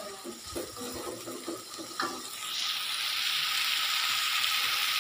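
Satay in gulai curry sauce being stirred with a spatula in a wok, then, a little over two seconds in, a loud steady sizzle sets in as the sauce fries and bubbles in the pan.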